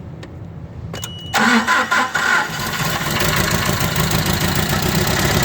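Nissan K21 four-cylinder engine with a cylinder 2 misfire, cranked over after a click about a second in, catching and settling into a steady run. It also has an exhaust leak, and the cranking is what the mechanic takes for low compression.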